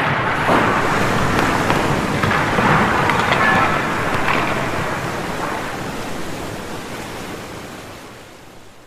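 Dense, steady rushing din of indoor sports drills heard together, with faint pitched fragments through it. It fades out gradually over the last four seconds or so.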